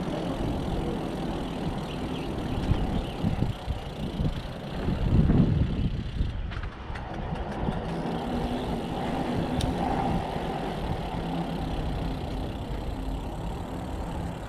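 A vehicle engine running steadily, with a brief low rumbling surge about five seconds in.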